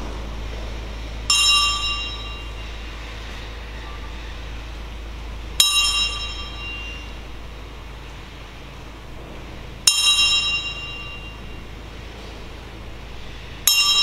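Boxing ring bell struck slowly, four single strokes about four seconds apart, each ringing out and fading. This is part of a ten-bell count, the traditional boxing salute to someone who has died.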